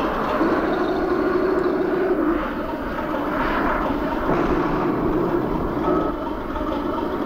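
Radio-controlled B-2 Spirit flying-wing model flying past overhead, its engines making a steady, slightly wavering drone.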